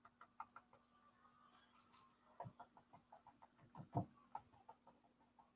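Faint, irregular taps of a paintbrush dabbing paint onto a canvas, a few a second, with a louder tap about four seconds in. A faint steady hum runs underneath.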